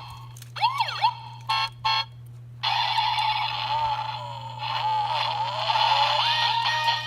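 A toy truck's built-in electronic sound chip plays a siren effect with repeated rising-and-falling wails. About two and a half seconds in, it switches to a tinny electronic tune that continues.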